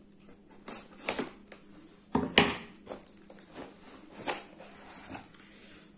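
A cardboard box being cut open with scissors and handled, heard as irregular rustles, scrapes and knocks. The loudest is a thump-and-scrape about two seconds in.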